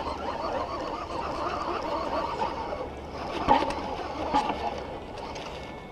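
Water splashing and sloshing from a hooked bass being fought beside a kayak, with a couple of short sharp knocks.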